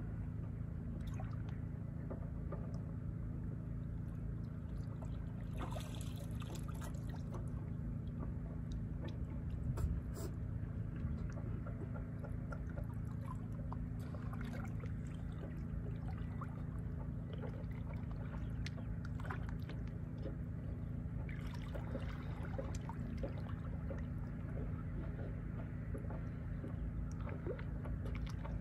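Water sloshing and trickling, with many small splashes over a steady low rumble.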